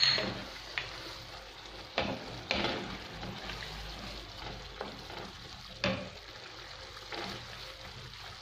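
Minced meat in tomato sauce sizzling in a frying pan while being stirred with a wooden spatula. A soft steady sizzle runs under several scrapes and knocks of the spatula against the pan, the loudest right at the start and about two and six seconds in.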